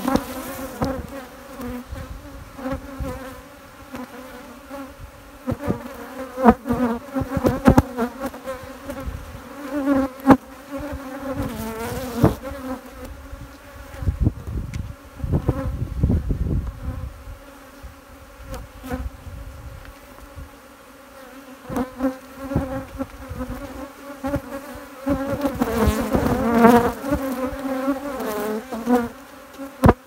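Honeybee colony buzzing steadily over an open hive. Occasional knocks and clicks come from the wooden frames being handled, and a low rumble sounds about halfway through.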